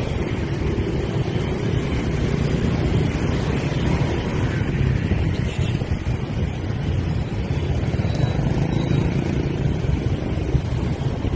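Wind buffeting the microphone in a steady low rumble while cycling, over the running of motor scooters in the traffic close ahead.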